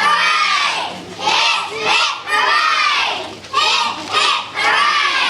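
A group of young children shouting together in a run of loud, high-pitched calls, about seven of them with short breaks between.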